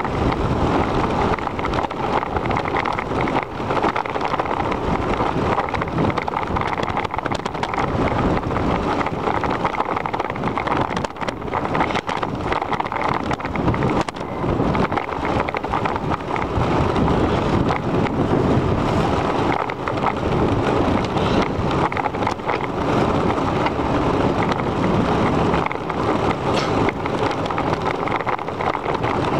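Wind buffeting the microphone of a camera riding on a moving bicycle, a steady rushing noise, with frequent small knocks and rattles from the bike rolling over the paved path.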